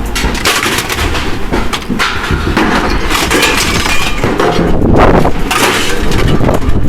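Scrap metal clattering and crashing in a dense run of irregular impacts, as pieces are thrown or tipped onto a pile.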